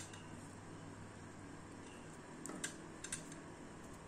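Faint clicks and rustles of fingers handling and twisting thin copper wire strands, a few small ticks past the middle, over a low steady hum.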